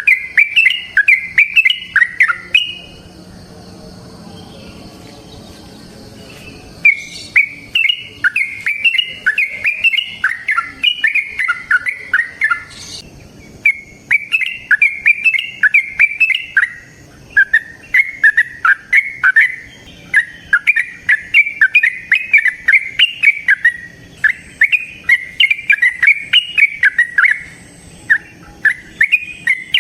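Yellow-vented bulbul (trucukan) singing long runs of quick, chattering notes, several a second. A pause of about four seconds comes near the start, and there are brief breaks between later phrases.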